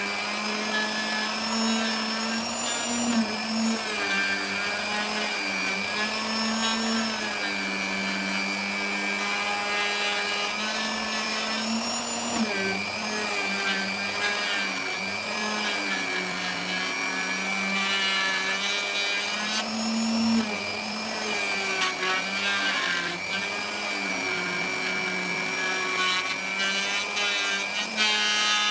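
Electric wood router cutting slots in teak, its motor whine dipping and recovering in pitch as the bit takes load.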